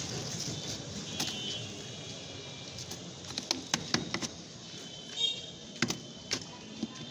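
Street background noise with scattered sharp clicks and taps, clustered in the second half.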